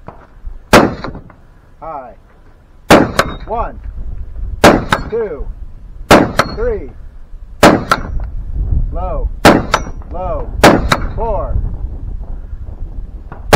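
Rifle shots fired about ten times, spaced one to two seconds apart with some in quick pairs. Most are followed within a second by a short ringing tone.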